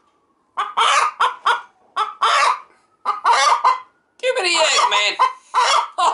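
Barred hen squawking and clucking in a run of loud short bursts, with one longer wavering call past the halfway point: an agitated, fussing hen.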